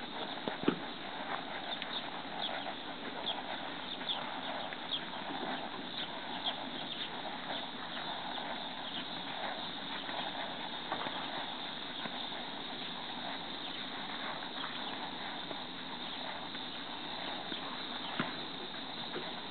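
Hoofbeats of an American Quarter Horse mare moving under a rider on soft arena dirt: faint, irregular thuds and clicks over a steady outdoor background hiss, with one sharp click about a second in as the loudest sound.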